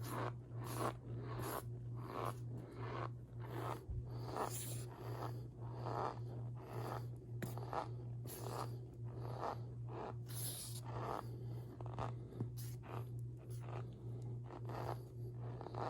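Squeaky starch powder worked by hand, giving a steady run of soft squeaking crunches, about one and a half a second, over a constant low electrical hum.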